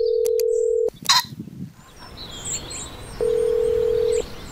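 Telephone ringback tone heard down the line while a call rings out: a steady tone sounding twice, about a second each time, with a gap of over two seconds between, and a click just after the first ring.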